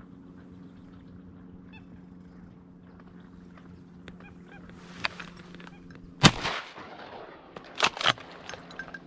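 Three shotgun shots at incoming ducks: one about six seconds in, ringing out afterwards, then two more in quick succession about a second and a half later.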